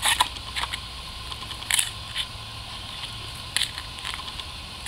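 Metal hand trowel scraping and digging soil off a buried stone grave marker: a handful of short, irregular scrapes.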